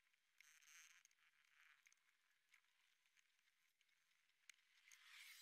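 Near silence, with faint rustling and small clicks of a sheet of drawing paper being handled, a little louder near the end.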